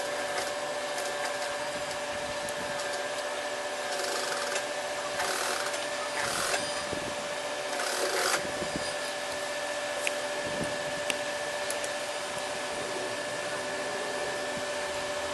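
Industrial sewing machine running while top-stitching a denim zipper fly: a steady motor hum, with short runs of louder stitching noise about four to eight seconds in and a couple of clicks later.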